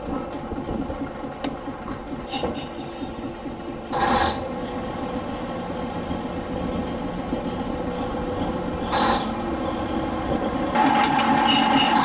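Machinery of a 1940s Industrial Brownhoist 250-ton railroad wrecking crane running, heard from inside its house beside the hoist drums and gears: a steady mechanical rumble with two brief hisses about four and nine seconds in. Near the end it gets louder, with a steady whine added.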